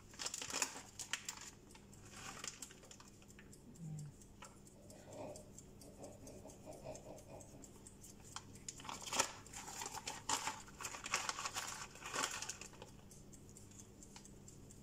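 A plastic bag of shredded cheese crinkling and rustling in gloved hands as cheese is shaken out of it, in short irregular bursts that are busiest a little past the middle.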